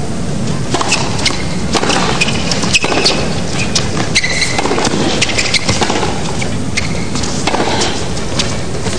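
Tennis rally on a hard court: sharp ball strikes off the racquets and a few short shoe squeaks on the court surface, over a steady background hiss.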